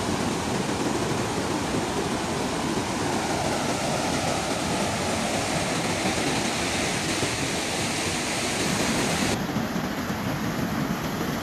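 Flash-flood water rushing in a steady, fast torrent. Near the end the high hiss drops away a little.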